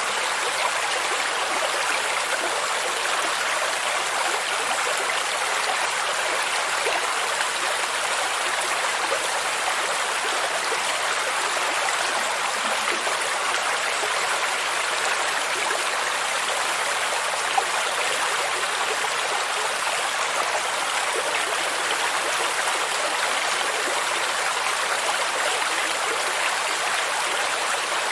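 Stream and small waterfall rushing and babbling, a steady even wash of water noise.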